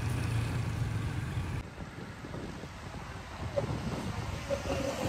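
Wind buffeting the microphone over the running of a motorbike on the road. The sound drops and changes character suddenly about a second and a half in.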